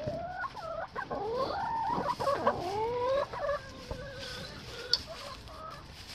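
Several hens clucking and calling, with drawn-out, wavering calls overlapping in the first few seconds, then quieter clucks. A single sharp click about five seconds in.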